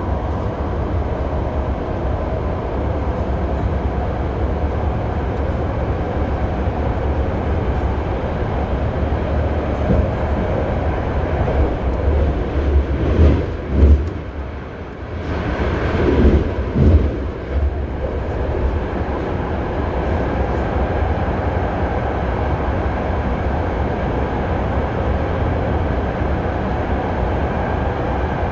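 Interior of a BART train running on elevated track: a steady low rumble of wheels and running gear. About halfway through it gets louder and bumpier with a few knocks, then dips briefly before settling back to the steady rumble.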